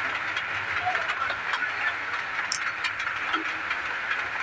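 A steady background hiss, with a few faint clicks as a small Phillips screwdriver works the screw terminal of a motor speed controller board.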